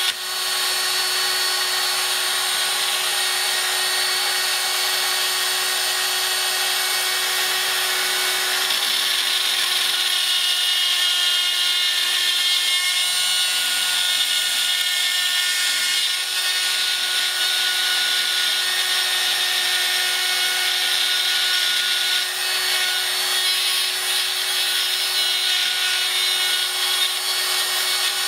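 Proxxon mains-powered mini drill running at steady speed in a pantograph engraver, its D-cutter milling nickel silver sheet: a constant motor whine with a hiss of cutting on top that grows busier from about ten seconds in.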